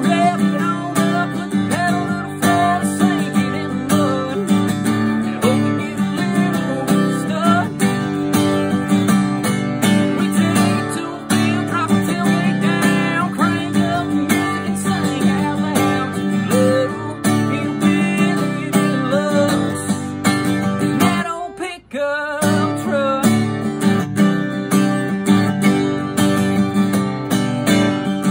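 Acoustic guitar strummed steadily, with a man singing a melody over it. The playing drops out briefly about three-quarters of the way through, then picks up again.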